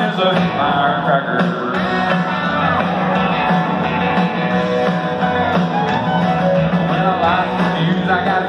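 Live country band playing through an arena PA, heard from the audience, with a male lead voice singing over electric guitars.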